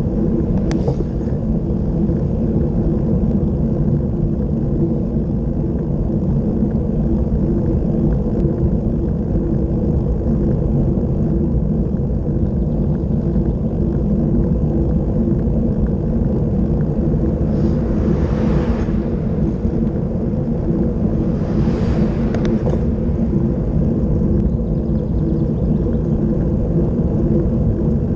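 Wind rushing over the microphone of a bicycle-mounted camera on a fast road descent: a loud, steady, low roar mixed with tyre noise on the asphalt. Two brief hissing surges come in the second half.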